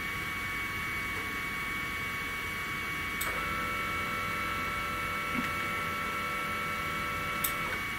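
3018 desktop CNC router's Z-axis stepper motor jogging the spindle straight up at a slow constant feed: a steady two-tone whine that starts with a click about three seconds in and stops with a click near the end. A faint steady high whine runs underneath throughout.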